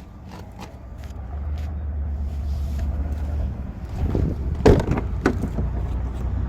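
A motor vehicle running, its low rumble growing louder about a second in, with a couple of sharp knocks a little past the middle.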